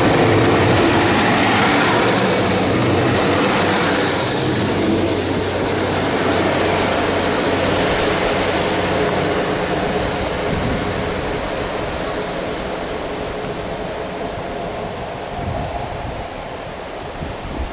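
Class 150 Sprinter diesel multiple unit running away along the line. The drone of its underfloor diesel engines and the rumble of its wheels fade steadily as it recedes.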